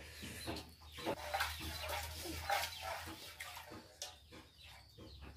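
Chickens clucking faintly, in short scattered calls, with a few light knocks.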